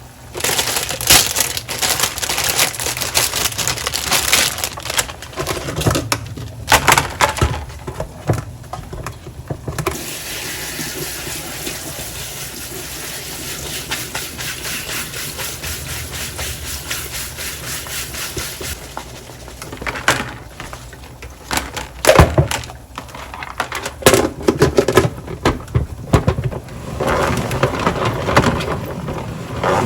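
Kitchen objects being handled: clattering and knocking of containers and packaging, with a steady hiss in the middle lasting about nine seconds.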